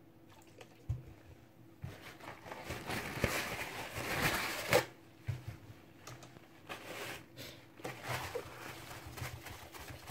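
Paper towel rustling and crumpling as it is handled, with a few light knocks near the start. Later the towel rubs softly over the phone's glass screen as the alcohol is wiped off.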